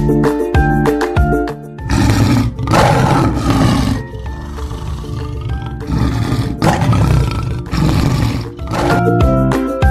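Lion roaring, a run of about six roars with short pauses between them. Upbeat music plays before the roars start and comes back near the end.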